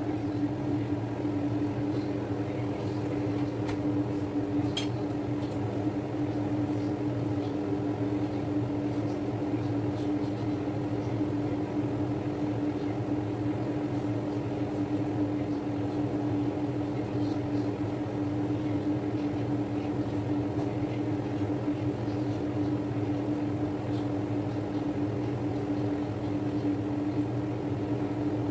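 Kitchen range hood exhaust fan running with a steady, even hum and one strong steady tone.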